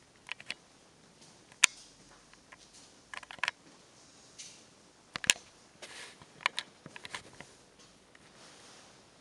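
Scattered short, sharp clicks and light taps in a quiet small room, some single and some in quick clusters; the loudest click comes about one and a half seconds in.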